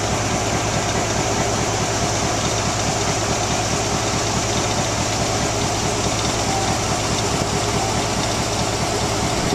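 Diesel switcher locomotive's engine idling, a steady low rumble with a fast, even throb.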